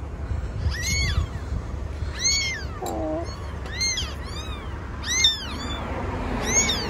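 A very young kitten meowing over and over, thin high cries about once a second, each rising and then falling in pitch.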